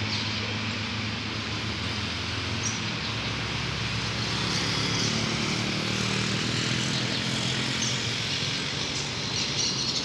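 Road traffic noise: a vehicle engine's hum that eases off and then swells again as it passes, over a steady haze of traffic. A few faint bird chirps sound above it.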